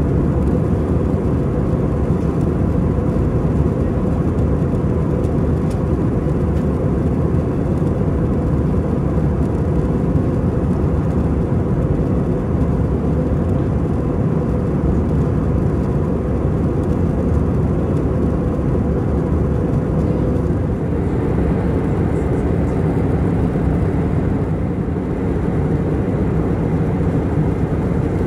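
Steady cabin noise inside an Airbus A319 airliner: an even, low rush of engine and airflow noise with no breaks.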